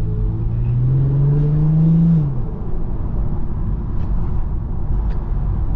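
Infiniti Q50's twin-turbo V6 pulling under acceleration, its note rising steadily for about two seconds, then dropping off suddenly into a low rumble.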